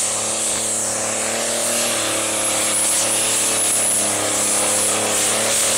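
Diesel engine of a green John Deere pulling tractor running flat out under load as it drags the weight-transfer sled, a steady heavy drone that eases slightly in pitch about two seconds in.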